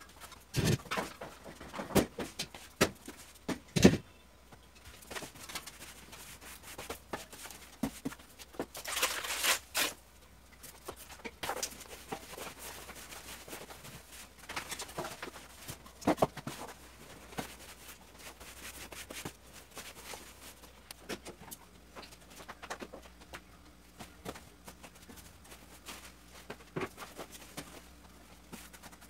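Floor cleaning with a long-handled broom on a tiled floor: scattered knocks, clicks and scrapes, the loudest about four seconds in, with a brief swishing hiss around nine seconds in.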